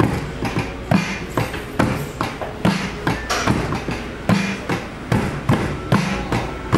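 Drum sounds from Logic Pro X, triggered by hands tapping the copper-tape pads of a bucket drum controller wired to a Makey Makey: an uneven beat of short pitched thumps and sharp hits, about two a second.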